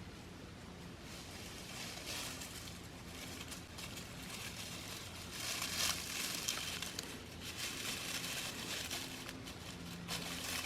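Faint rustling and crinkling of dry leaves, swelling and fading every second or two.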